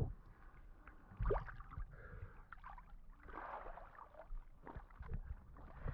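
Faint, intermittent sloshing and gurgling of water as someone wades through a shallow, rocky spring run, with a few soft splashes and small knocks.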